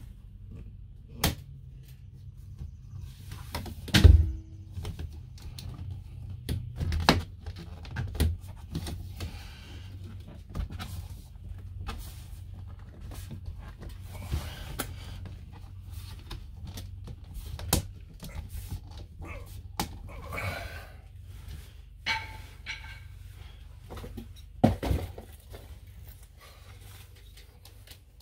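Scattered knocks and clunks from a motorhome's sliding window panel and frame being pushed and handled, the loudest about four seconds in, over a steady low hum.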